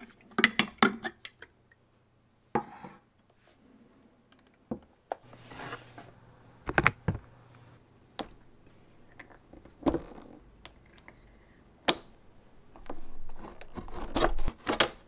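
Tools and parts being handled while an iMac is taken apart: scattered sharp clicks and knocks, one loud click near the end, and a few longer stretches of scraping.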